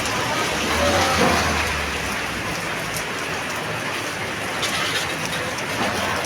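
Steady heavy rain falling and pattering on surfaces, with a brief low rumble in the first two seconds.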